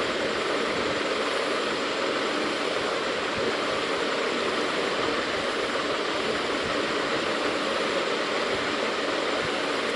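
A steady, even rushing noise that does not change: constant background hiss with no speech.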